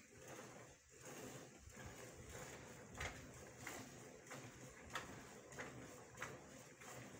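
Cow being milked by hand: squirts of milk hitting the container, about one and a half a second in a steady rhythm.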